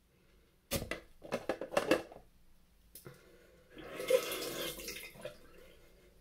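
Several quick splashes of water, a click about three seconds in, then a hiss of running water lasting about a second and a half.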